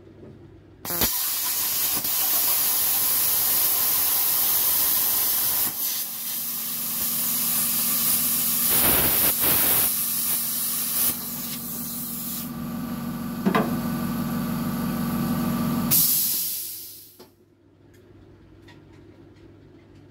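Handheld plasma cutter cutting a large hole through steel car body panel: a loud, steady hiss with arc crackle, broken briefly about six seconds in. The arc stops about sixteen seconds in and the air hiss dies away over a second.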